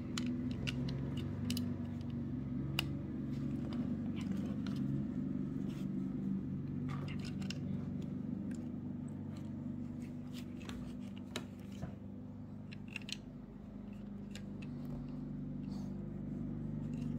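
Plastic Lego bricks being handled and pressed onto a model: scattered small clicks and taps, over a steady low hum.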